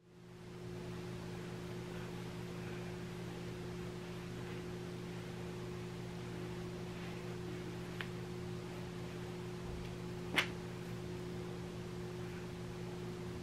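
Quiet room tone with a steady low electrical hum. A faint tick comes about eight seconds in and a sharper tap a couple of seconds later.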